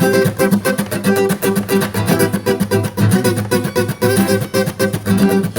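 Acoustic guitar strummed in a fast, even ska rhythm, an instrumental passage with no singing.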